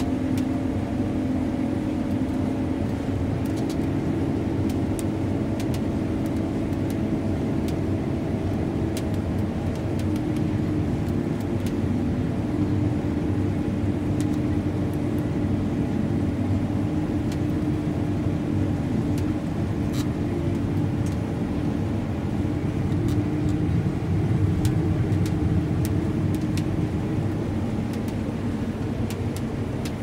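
John Deere S780 combine running steadily under load while cutting soybeans, heard from inside its cab as a constant drone of engine and threshing machinery with a steady low hum.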